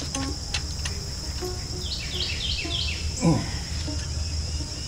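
Steady high-pitched chirring of crickets, with a quick run of bird chirps about two seconds in. A short falling sound just after three seconds is the loudest moment, and there are a few light clicks near the start.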